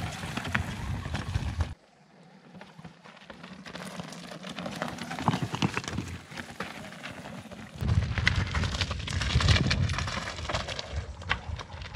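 Electric mountain bike riding over a rocky trail: tyres crunching and clattering on stone and gravel over a low rumble. The noise drops away suddenly about two seconds in, builds back up, and is loudest in the second half.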